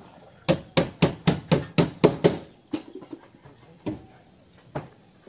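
A quick run of about eight sharp taps in under two seconds, then a few single taps, as wet mud is patted and pressed onto a wooden plank.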